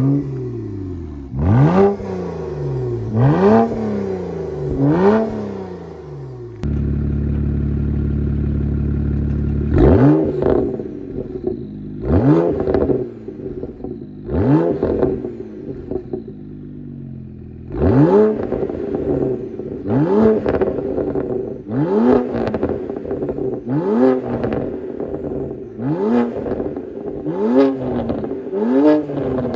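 BMW E92 335is's N54 twin-turbo inline-six, fitted with catless downpipes, being revved over and over: each blip jumps up sharply in pitch and falls back, about a dozen in all. Near the middle the sound holds at one steady pitch for about three seconds before the blips resume.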